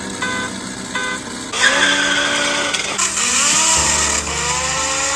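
A car engine accelerating hard from a launch, its pitch rising through gear changes, after two short beeps.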